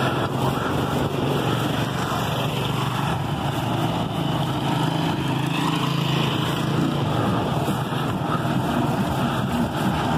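Steady street traffic noise with a small motorcycle engine running; the engine hum eases off about seven seconds in.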